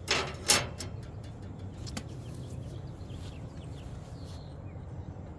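Two short, loud scraping clatters of sheet metal as a steel patch panel is handled against the truck bed, then a single light tap about two seconds in, over a steady low hum.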